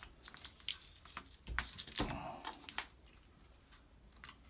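Hands working putty tape onto the flange of a plastic vent cover, peeling and pressing it down. Scattered small clicks and brief rustles, a little louder about halfway through.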